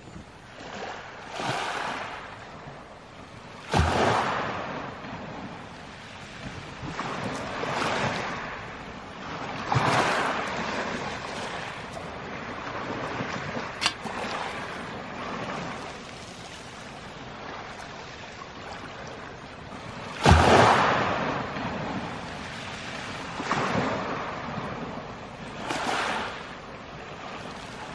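Small waves washing up on a pebble beach, a surge of wash every couple of seconds, with louder breaks about four seconds in and again about twenty seconds in.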